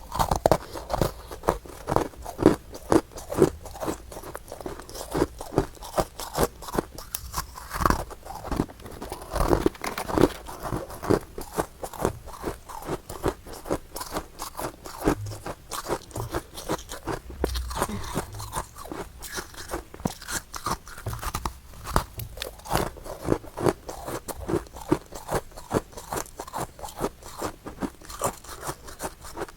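Close-miked crunching and chewing of freezer frost ice in the mouth: a rapid, continuous run of crisp crunches, several a second, with no pause.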